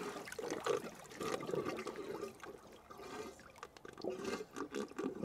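Water sloshing and gurgling in a wooden hot tub as the bathers duck fully under the surface, in irregular uneven surges.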